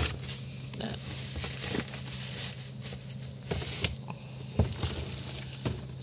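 Plastic produce bags rustling and crinkling as a hand rummages through a refrigerator crisper drawer, with scattered light clicks and knocks. A steady low hum runs underneath.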